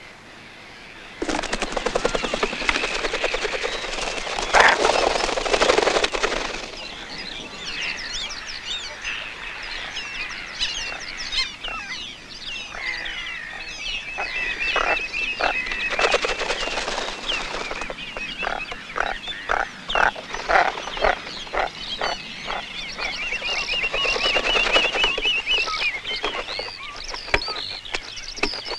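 Wild birds calling over one another. A loud, noisy stretch starts suddenly about a second in, followed by many quick high chirps, two sustained high trills and runs of short, sharp calls.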